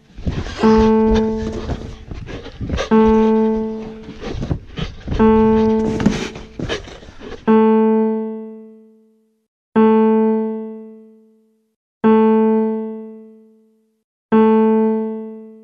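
One low note, like an electric piano tone, struck seven times at an even pace of about one every two and a half seconds, each dying away. Rustling and knocking run under the first four notes and then stop.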